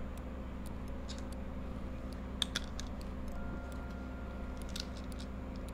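Scattered small plastic clicks and taps from handling the feature phone, louder ones about two and a half seconds in and near five seconds, over a steady low hum.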